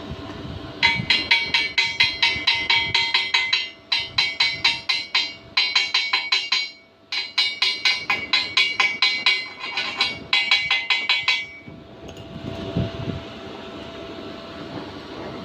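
Rapid metallic tapping, about six strikes a second, in several runs of one to three seconds with short breaks, the steel pipe ringing with each strike: typical of a chipping hammer knocking slag off a stick weld.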